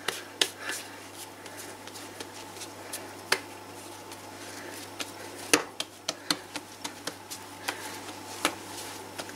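Hands rounding a soft ball of pizza dough on a floured surface: irregular soft pats and taps of the dough and fingers against the surface, a few sharper than the rest, over a faint steady low hum.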